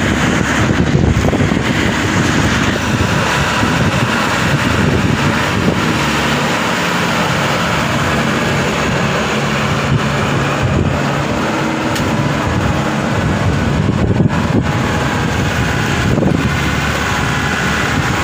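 Diesel engine of a tracked combine harvester running steadily as it crawls along the roadside.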